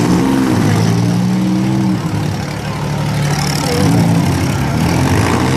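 Six-cylinder demolition derby car engines revving hard as the cars push with wheels spinning in the mud. The engine pitch climbs at the start and holds, sags briefly about two seconds in, then climbs again.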